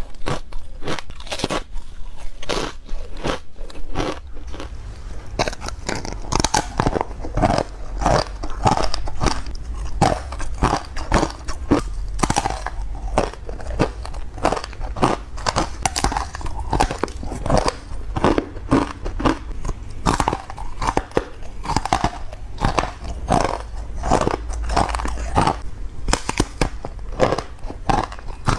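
Close-miked crunching of frozen matcha ice: a fast, unbroken run of crisp bites and chewing.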